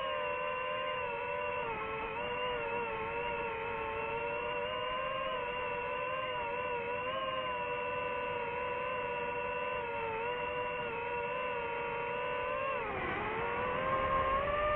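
DJI FPV drone's motors and propellers whining steadily. About thirteen seconds in, the pitch drops sharply and then climbs back as the motors briefly slow and speed up again.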